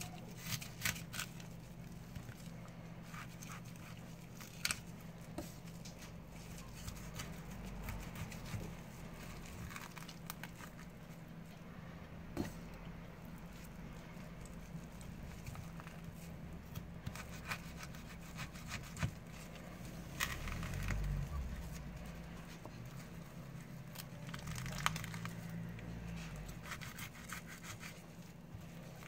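Knife cutting and scraping through a raw bluefin tuna collar, with scattered short clicks as the blade meets bone, over a steady low hum.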